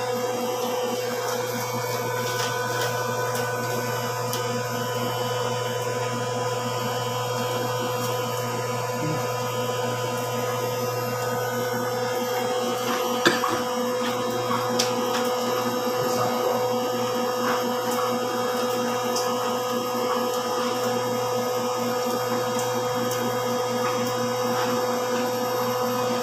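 A steady motor hum holding one unchanging pitch, with a few light clicks about halfway through as fingers pick at chicken in a plastic takeout tray.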